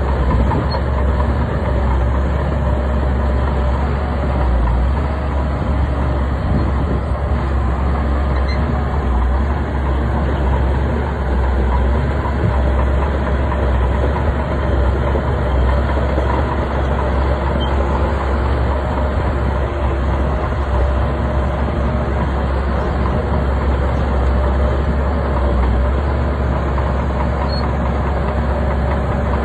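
Bulldozer's heavy diesel engine running steadily, with a deep low rumble.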